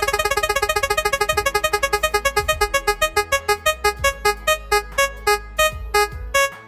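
A game-show style spinning prize-wheel sound effect: a fast run of short electronic ticking notes that gradually slows as the wheel comes to rest, stopping near the end.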